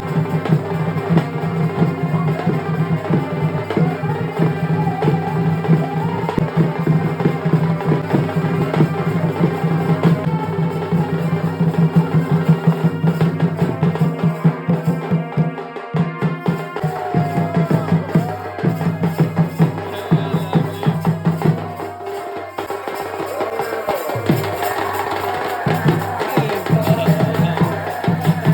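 Music accompanying a Chhau dance: fast drumming and percussion over a steady low drone, with a melody line. The drums thin out for a moment around the middle, then come back in.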